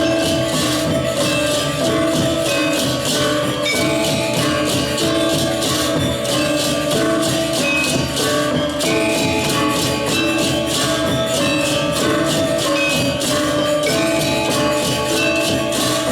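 Balinese gamelan ensemble playing: ringing pitched metal keys that move from note to note over fast, steady high metallic clashing.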